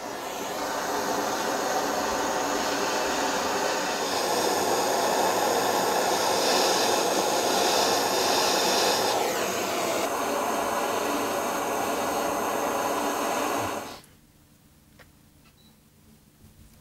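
A workshop tool running with a steady rushing hiss. It grows louder and brighter about four seconds in and cuts off sharply about fourteen seconds in.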